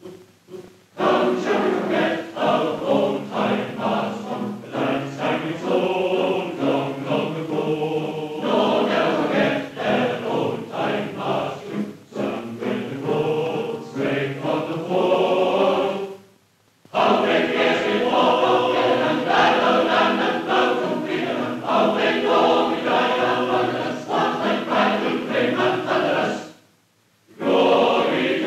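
A choir singing, with sustained, slowly moving sung chords. It breaks off briefly twice, about sixteen seconds in and again near the end.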